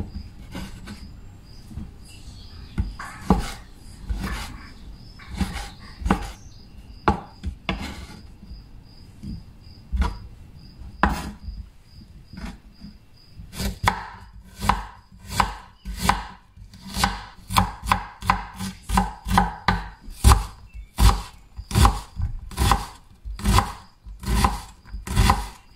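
Kitchen knife chopping vegetables on a wooden cutting board: scattered cuts through tomatoes, then from about halfway a quicker, even run of strikes, about two to three a second, dicing a red onion.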